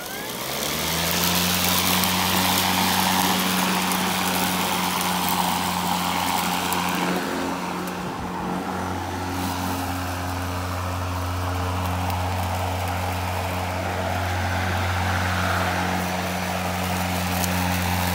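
EGO LM2135SP battery-powered dual-blade lawn mower running while cutting thick St. Augustine grass: its blades come up to speed in the first second, then hold a steady hum like a loud fan, dipping slightly about eight seconds in.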